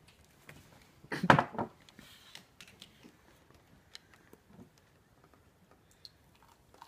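Small handling sounds at a table: a drink bottle and mug being handled, with scattered faint clicks and rustles. One short, louder noise comes about a second in.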